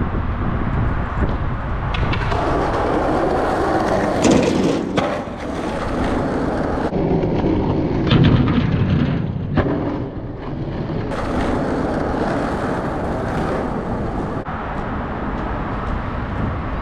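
Skateboard wheels rolling over rough pavement, with several sharp clacks and slams of the board against the ground, loudest about four seconds in and again about eight seconds in.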